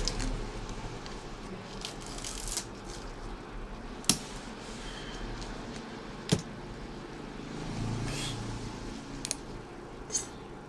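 Small handling sounds of a steel razor blade scraping and clicking against the metal grille of a handheld karaoke microphone. Two sharp clicks stand out about four and six seconds in, with a few fainter ticks near the end.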